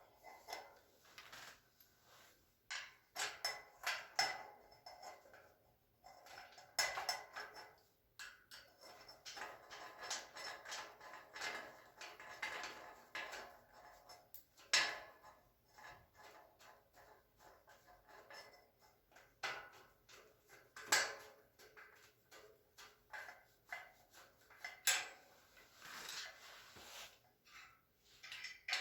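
Metal shelving parts and screws clinking and rattling as they are handled and a bracket is fitted, with irregular small clicks and a few sharper knocks.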